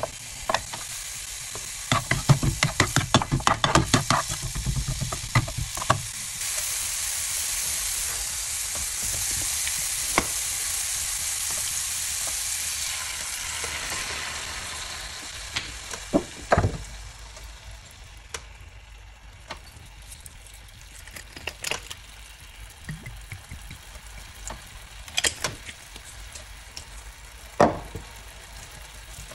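Julienned ginger frying in hot oil in a pan: crackling as it goes in, then a steady loud sizzle. About halfway through, soy sauce is poured in and the sizzle dies down to a softer bubbling crackle, with a few sharp knocks.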